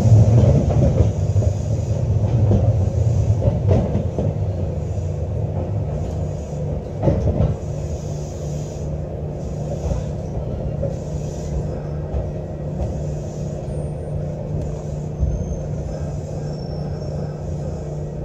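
Electric train running along the track, heard from inside the driver's cab: a steady low rumble and hum, with a few knocks from the wheels, the loudest about seven seconds in. It gradually gets quieter.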